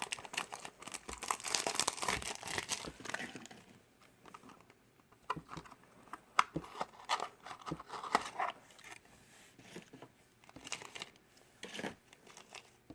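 Plastic toy packaging crinkling and tearing as it is opened by hand. The sound is dense for the first few seconds, then thins to scattered crinkles and small clicks.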